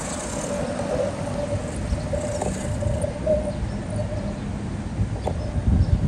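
Street traffic rumble, with a steady mid-pitched whine running over it and a few faint clicks.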